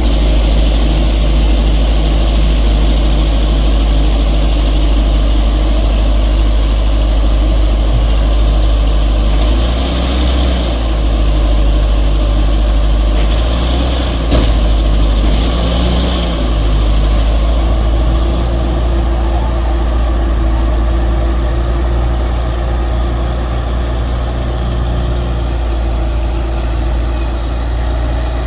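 Heavy earthmoving machine's diesel engine running steadily under working load, swelling briefly a few times as it digs or pushes. A single sharp knock about halfway through.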